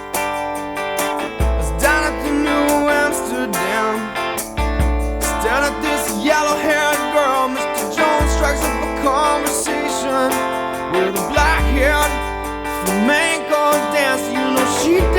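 Rock song intro: acoustic guitar strumming over deep bass notes that come in every three seconds or so, with a voice singing wordless, wavering lines on top.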